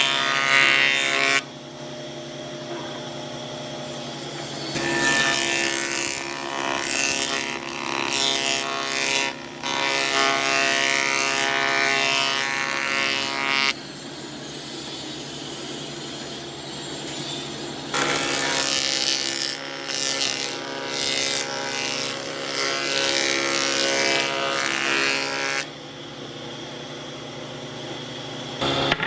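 A power tool running with a steady whine, cutting or grinding into wood in long louder, rougher stretches that start and stop abruptly.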